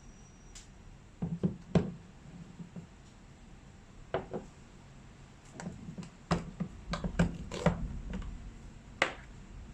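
Irregular knocks and clatters of hard objects being handled, one of the loudest about two seconds in, then a busier run of knocks in the second half.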